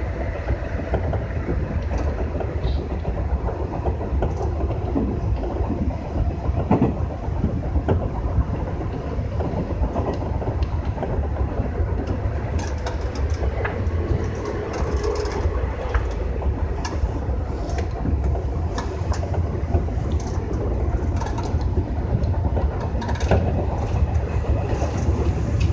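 Running noise of a JR West 201 series electric commuter train heard inside the driver's cab: a steady low rumble of wheels on rail, with scattered short clicks.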